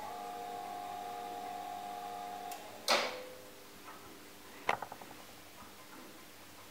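Hörz tower-clock hand movement driven by its DC II master clock: a click, then a steady hum for about two and a half seconds that stops suddenly. A loud metallic clunk with ringing follows about three seconds in, and a sharper clack with a short rattle comes near five seconds.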